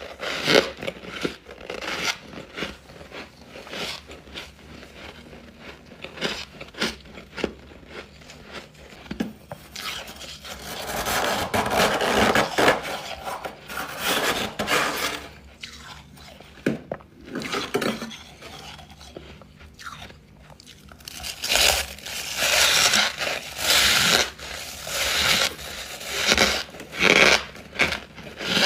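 Close-miked biting and chewing of frosty ice chunks: repeated sharp cracks and crunches with squeaky bites. The chewing is busiest about ten seconds in and again through the last seven seconds.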